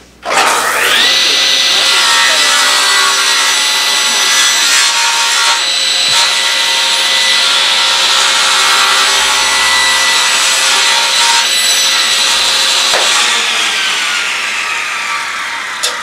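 SawStop table saw switched on, its motor and blade spinning up with a rising whine, then running steadily with a high whine while a crosscut sled carries the workpiece through the blade. About thirteen seconds in it is switched off and winds down with a falling pitch.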